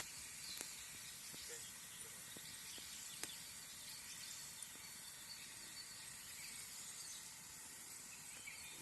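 Quiet forest ambience: a faint, even hiss with a few soft, isolated clicks.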